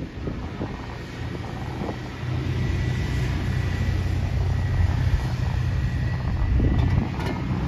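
Terminal tractor's engine running as it drives past, a steady low hum that swells from about two seconds in and stays loud, with a faint steady high whine.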